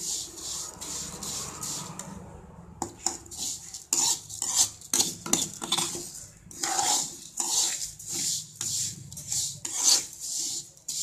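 Steel spoon scraping and stirring vermicelli roasting in ghee in a metal pan. After a smoother stretch at first, it comes as repeated scraping strokes, about two or three a second, as the vermicelli is fried to a light golden colour.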